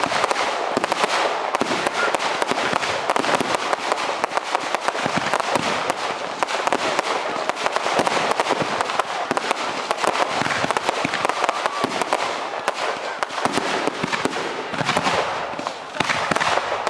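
Firework display going off: a dense, continuous run of crackles and bangs from many shells bursting, with no pause.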